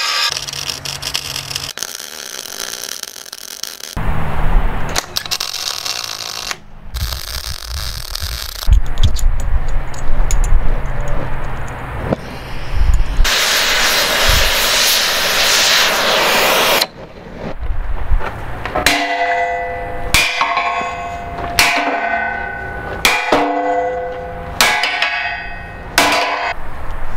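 Steel fabrication sounds in short cut segments: an angle grinder cutting steel and an oxy-fuel torch hissing. In the last ten seconds a sledgehammer strikes steel flat bar about once a second, each blow ringing on.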